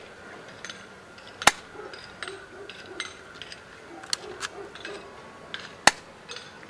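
A pellet gun fired twice, two sharp cracks about four and a half seconds apart, with fainter clicks between them.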